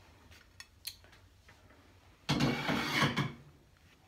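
Handling noise from a phone camera being repositioned on a dining table: a few light clicks, then about a second of loud rubbing and knocking a little past halfway.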